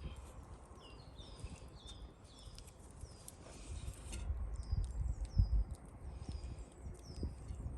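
Small birds calling: many short, high notes that each drop in pitch, several a second, over a low rumble.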